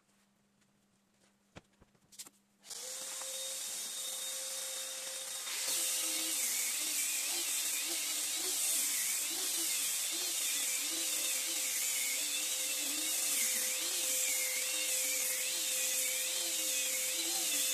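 A few light knocks, then an electric sander switches on about three seconds in and a second sander joins a couple of seconds later. Both run steadily on teak planks, their pitch wavering as they work the wood.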